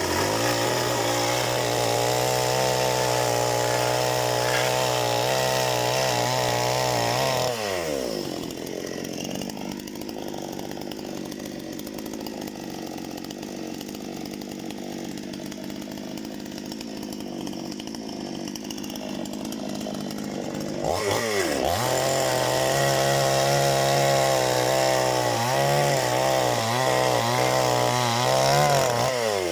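Parma BP-058 two-stroke chainsaw held at high revs, dropping to idle about seven seconds in, then revved back up at about 21 seconds, its pitch wavering under load near the end before it drops back down.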